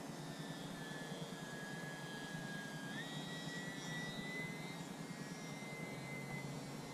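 Small electric RC plane, an E-flite UMX Turbo Timber, whining in flight from its motor and propeller. The pitch sags slightly, then steps up about three seconds in with a throttle change, over a steady background hiss.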